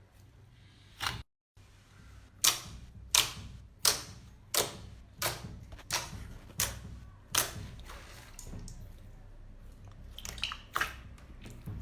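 Slime being pressed and worked by hand, giving a run of sharp, crisp clicking pops about one every 0.7 seconds, then softer clicks near the end.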